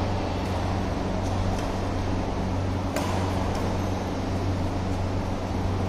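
Steady low mechanical hum, with a few sharp taps of a badminton racket striking a shuttlecock; the clearest tap comes about three seconds in.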